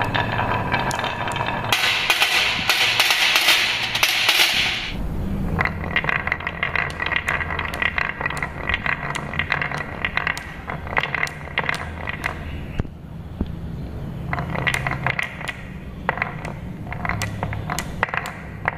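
Marbles rolling along carved wooden tracks and clacking against one another as they pile up in the grooves. A dense, loud rattle in the first few seconds gives way to a long run of sharp separate clicks.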